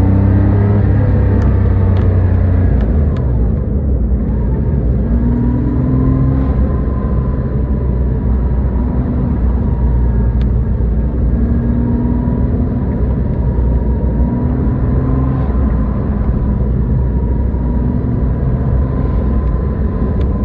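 Porsche 997's flat-six engine pulling and backing off as throttle is applied and released several times, its note rising and falling. A steady thin whine runs over it. The owner hears an unexplained noise at exactly these on- and off-throttle changes.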